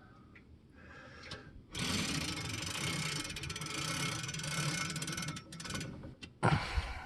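Grandfather clock's weight chain being pulled down through its winding sprocket, a fast clattering rattle of chain links and ratchet clicks that raises the third weight toward the top. The rattle thins to a few clicks, and a louder single knock comes near the end.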